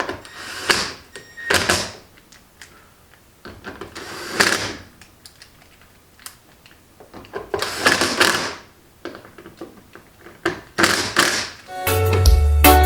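Car interior parts being handled: about five short scuffing, rustling bursts with light thunks, spaced a couple of seconds apart. Background music comes in near the end.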